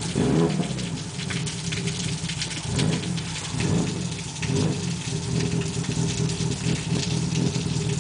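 Hyundai Tiburon's 2.7-litre V6 with aftermarket camshafts idling at about 1,000 rpm, heard from inside the cabin; the idle rises and falls unevenly, with a fine crackle over the engine note.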